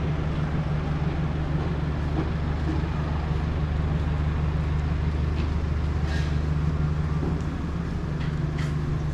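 Steady low hum of an engine running at idle, unchanging throughout, with a few faint short ticks near the end.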